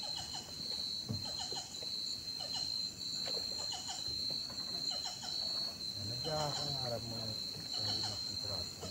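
Forest insects droning in one steady high-pitched tone, with scattered short chirps over it. About six seconds in, a man's voice talks briefly.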